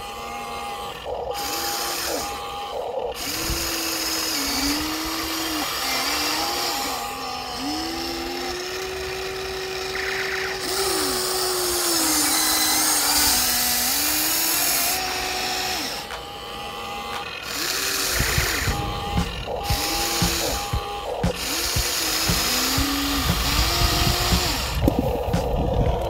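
Electric gear motors of a HUINA remote-control toy excavator whining in short runs. Each run rises in pitch, holds and falls away as a movement of the arm, bucket or turret starts and stops, with one longer run near the middle. From about two-thirds of the way in, rough crackling and knocks join it as the bucket works the sand.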